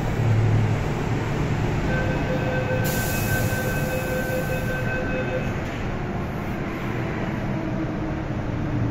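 An MTR M-train electric metro train rolling in along the platform behind the screen doors: a steady rumble of wheels and running gear. A steady high-pitched whine rides on top for a few seconds in the middle.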